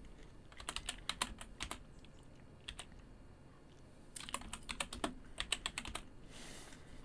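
Typing on a computer keyboard: two short runs of quick keystrokes, one about a second in and one a little past the middle.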